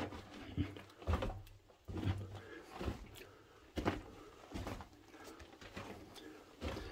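Footsteps crunching and scuffing on the rocky, rubble-strewn floor of a narrow mine tunnel, uneven steps about a second apart.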